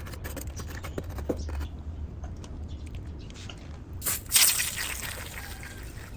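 Small clicks and wet handling sounds, then about four seconds in a loud hissing burst of water spray lasting about a second and a half, from a miniature toy-car wash.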